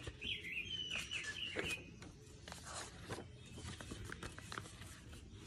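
Birds chirping in the background, with soft rustles and taps of a paperback picture book's pages being handled and turned.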